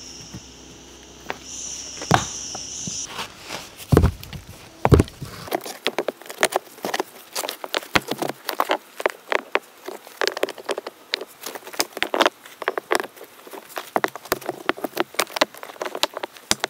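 Insects buzzing steadily with a high, even drone for the first three seconds, then two heavier thumps and a dense, irregular run of sharp clicks and taps.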